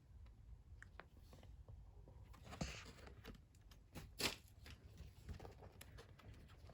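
Quiet handling of a paper photo book: soft page rustles and a few small clicks and taps, the loudest a rustle about two and a half seconds in and a sharp tap about four seconds in.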